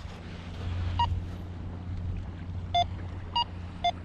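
Minelab GoFind 66 metal detector giving four short beeps that alternate between a higher and a lower tone as it sweeps over a buried target. The beeps sit over a steady low rumble of wind and surf.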